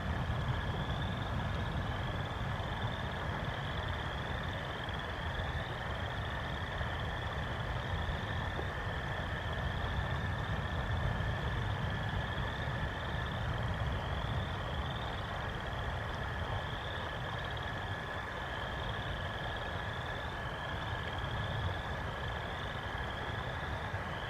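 Frogs calling: a continuous run of short, rising peeps, a little more than one a second, over a steady low rumble and a faint constant high tone.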